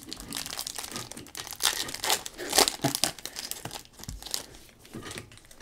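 Foil trading-card pack wrapper crinkling and tearing as it is pulled open by hand: a run of sharp crackles, loudest about two and a half seconds in.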